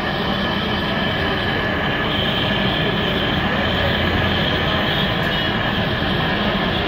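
Steady roar of a gas burner under pots of boiling milk tea, while a ladle scoops the tea and pours it back into the pot from a height.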